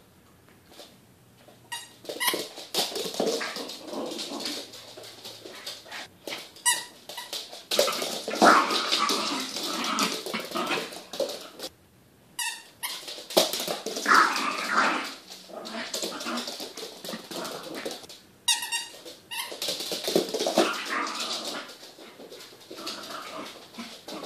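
Small puppy growling in playful bouts with short pauses, starting about two seconds in, with a few short runs of rapid clicking.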